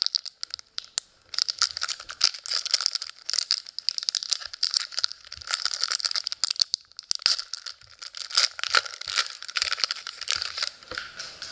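Foil wrapper of a hockey trading-card pack crinkling and tearing as it is handled and ripped open: a dense run of small crackles that goes on almost without a break.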